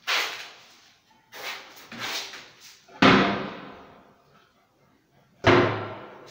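Wooden kitchen cabinet doors of HDF board being swung and knocked shut, five sharp knocks with a short ring, the loudest about three seconds in.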